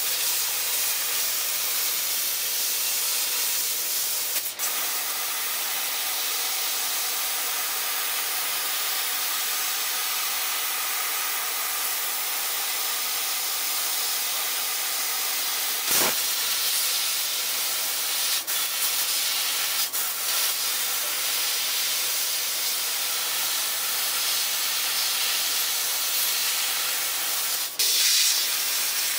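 Steady hiss of the assist-gas jet from a CNC laser cutting head as it cuts brass and aluminium sheet, broken by a few short clicks or dropouts.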